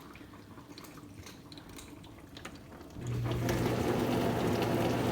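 Amana dishwasher's wash pump motor starting about three seconds in, a steady hum with water spraying inside the tub, after a few seconds of faint trickling. It is typical of the test cycle moving on to a spray step, perhaps the lower spray arm alone.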